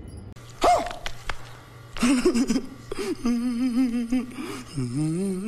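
A man crying: a sharp gasp near the start, then a long whimpering wail that wavers up and down in pitch.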